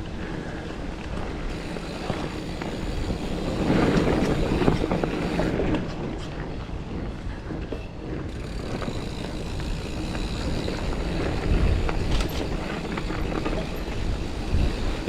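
Giant Fathom mountain bike rolling along a dirt trail. Tyre noise and rattling from the bike run through it, louder around four seconds in and again near twelve seconds, with scattered clicks and knocks.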